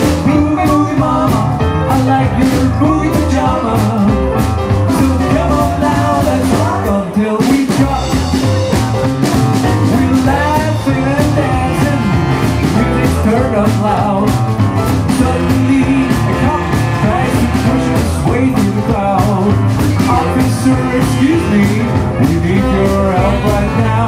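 Live rock and roll band playing a boogie-woogie number with electric guitar and upright bass over a steady beat.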